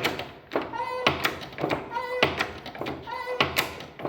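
Hand-operated pressure-test pump being worked in a steady rhythm, each stroke giving a loud squeak and a knock. The pump is raising the water pressure in a heating system under a pressure test.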